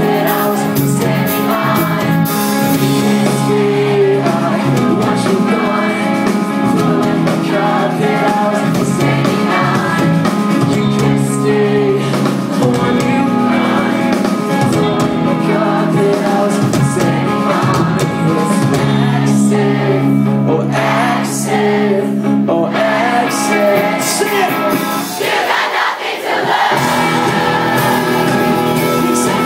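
Live rock band playing loudly, with guitars and a sung lead vocal.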